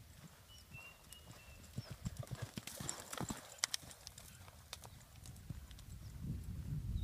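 Hoofbeats of a ridden horse cantering on an arena's loose sand. The strikes are loudest in the middle as the horse passes close by, then fade as it moves away.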